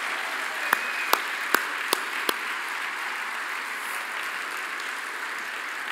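Audience applauding steadily, with a few sharp, close single claps standing out in the first couple of seconds.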